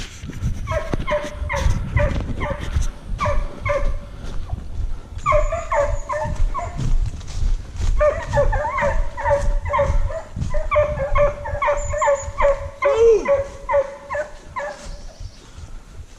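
Pack of hunting hounds giving tongue, short overlapping yelping barks from several dogs, while working the scent trail of a wild boar. The baying starts about half a second in, thickens from about 5 s on, and fades out near the end.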